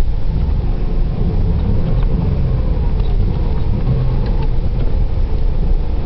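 Low, steady rumble inside the cabin of a 1993 Opel Vectra 2.5 V6 driving on a snow-covered road, a mix of engine and tyre noise.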